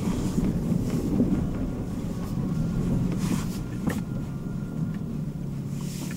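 Lexus RX 450h hybrid's 3.5-litre V6 engine running under acceleration in eco mode, with tyre and road noise, heard from inside the cabin. A single sharp knock about four seconds in.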